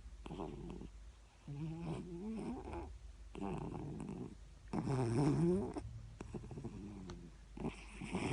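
Siamese cat snoring: about six snores in a row, each breath around half a second to a second long with a wavering pitch, the loudest about five seconds in.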